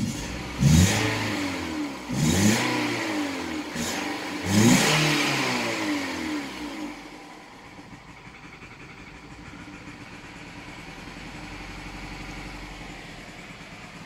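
The misfiring 1.8-litre four-cylinder engine of a 2008 Nissan Versa is revved three times in quick succession, its pitch rising and falling back each time, then settles to idle. The misfire was traced to failing ignition coils.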